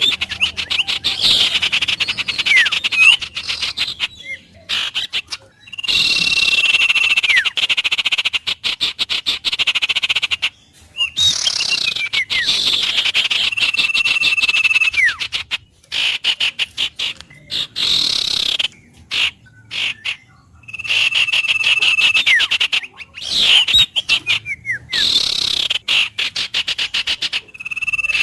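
Wild bird calls: a fast rattling trill followed by a held whistle that drops off at the end. The pair of calls repeats about every five or six seconds, with brief pauses between.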